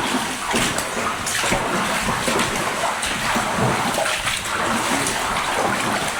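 People wading through floodwater in a drainage tunnel, with irregular splashing and sloshing from each step.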